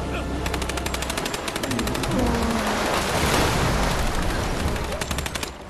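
Rapid automatic gunfire: one long, sustained burst of shots about ten a second, which cuts off abruptly about five and a half seconds in.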